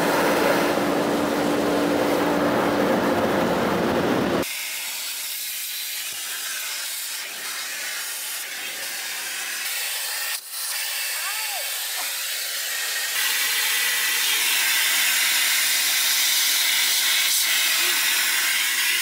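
Automatic car wash water jets spraying over the car, heard from inside the cabin, for about the first four seconds. Then a car-wash vacuum hose sucking steadily as the car's interior is vacuumed, a thinner hiss that gets louder about two-thirds of the way in.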